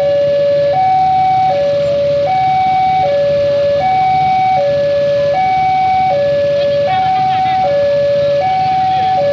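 Railway level-crossing warning alarm sounding its electronic two-tone signal, a higher and a lower note alternating about every three-quarters of a second, with the barrier down for an approaching train.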